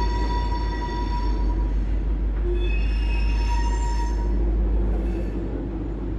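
Freight train of covered hopper cars rolling slowly through a street crossing, with steel wheels squealing in two long spells over a steady low rumble.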